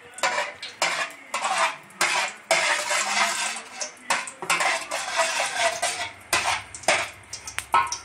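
Metal spatula scraping and clinking against the bottom of a stainless steel pan in quick, repeated strokes.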